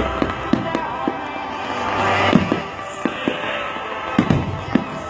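Fireworks going off in a run of irregular sharp bangs and pops, over music that keeps playing underneath; the music's deep bass stops about two and a half seconds in.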